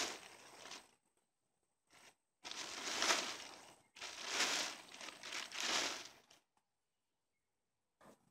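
Dry square hay bales rustling and crunching as they are grabbed and shifted, in several bursts of a second or two.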